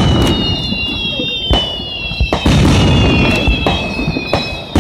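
Aerial fireworks shells bursting in quick succession: about five sharp booms with a low rumble between them. Several high whistling tones slide slowly downward behind the booms.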